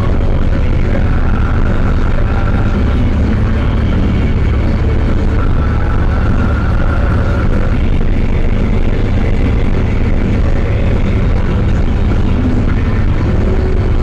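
Zetor 7011 tractor's four-cylinder diesel engine running steadily on the road, heard inside the cab as a deep, even drone, with a fainter higher whine that comes and goes above it.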